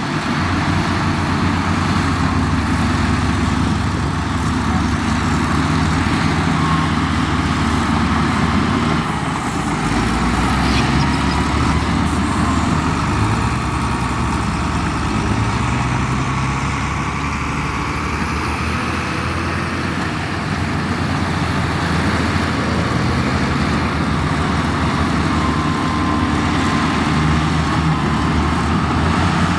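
Heavy diesel engine of road-construction machinery running continuously, its pitch shifting up and down several times as the load changes.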